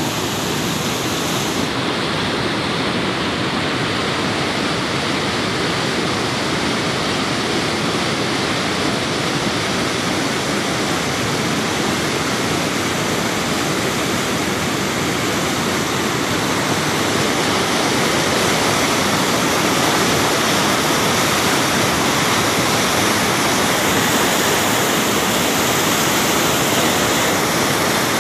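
Loud, steady rush of a fast mountain river churning through white-water rapids.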